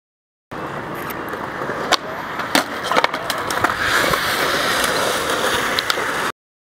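Skateboard wheels rolling on concrete, with several sharp clacks of the board in the middle. The rolling starts abruptly and cuts off abruptly.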